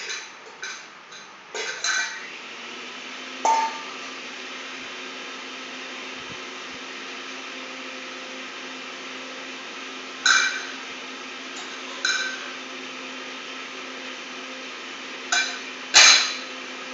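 Metal objects struck like a drum, giving sharp clinks that ring briefly. There is a quick run of strikes at the start, then single strikes and pairs several seconds apart, the loudest near the end, over a steady low hum.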